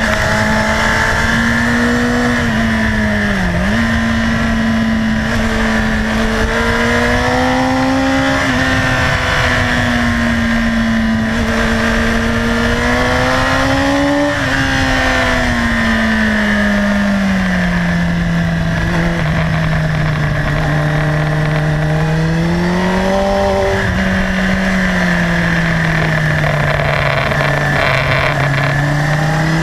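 Sport motorcycle engine running hard on a race circuit, heard from the rider's position. Its pitch climbs and falls as the bike accelerates and slows through the corners, with a quick dip a few seconds in. A steady rush of wind lies underneath.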